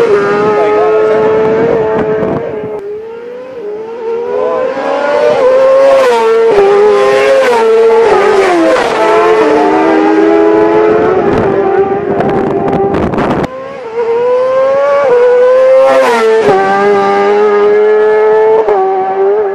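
Racing motorcycles passing one after another at high revs during an Irish road race. The engine note climbs through the gears and drops away as each bike goes by.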